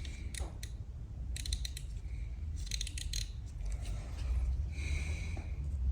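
Socket ratchet wrench clicking in short runs of rapid clicks, three runs in the first half, as it is swung back and forth on a stubborn engine bolt during a motorcycle cam belt job, over a steady low hum.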